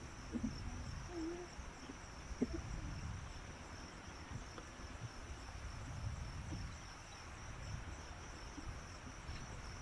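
Steady high-pitched chirring of insects throughout, over an uneven low rumbling noise, with one sharp click about two and a half seconds in.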